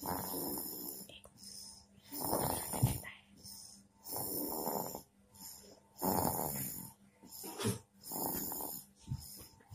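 A sleeping baby snoring, one snore on each breath, about every two seconds.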